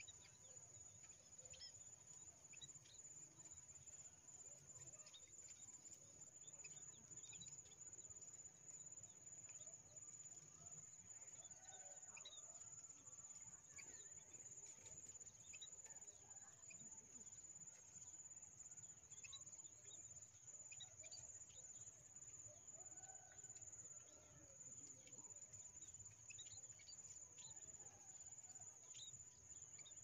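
Faint, scattered short chirps of munias around a bamboo bird trap, over a steady high-pitched insect drone.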